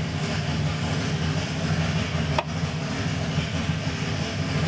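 A steady low machine hum, with a single sharp click about halfway through. The click is a torque wrench clicking as a flywheel bolt reaches its set torque.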